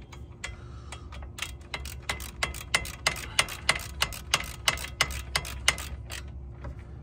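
Hand ratchet wrench clicking in short, even strokes, about three clicks a second, as the front brake caliper bolts of a Subaru Sambar are tightened back down; the clicks stop about a second before the end.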